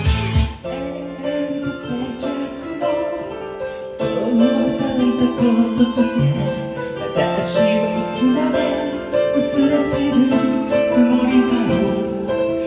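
Instrumental break of a J-pop backing track: the heavy drums and guitar stop about half a second in, leaving held piano and keyboard chords with a few cymbal splashes.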